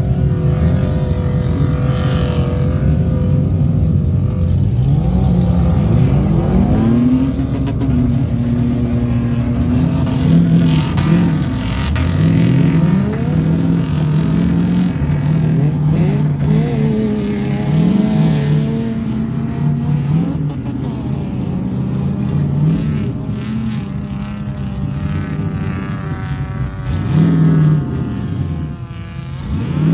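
Car engines revving, their pitch climbing and falling again several times over a steady running hum.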